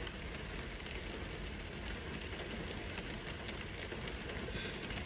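Heavy rain falling on a car's roof, heard from inside the cabin: a steady patter of many small drop ticks over a low rumble.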